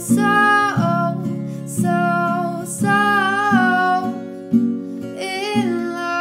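Background music: strummed acoustic guitar with a singing voice whose phrases come in about every two and a half seconds.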